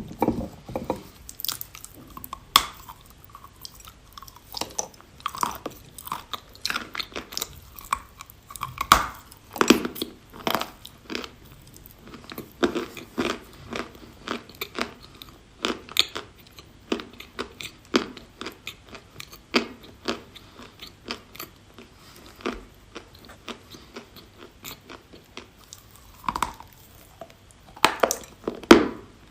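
A piece of eating chalk being bitten and chewed close to the microphone: sharp, irregular crunches, at times several a second.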